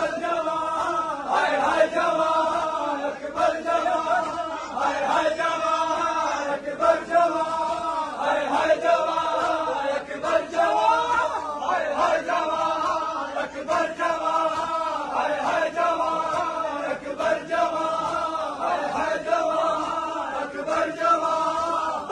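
Men chanting a noha (Shia mourning lament) in unison, repeating a short refrain in a steady rhythm of about one phrase every one and a half seconds.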